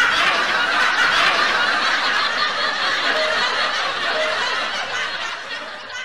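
Laughter of a crowd, a laugh-track sound effect, fading away near the end.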